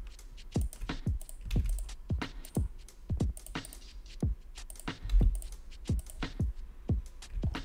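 Irregular clicking of a computer keyboard and mouse, about two to three sharp clicks a second.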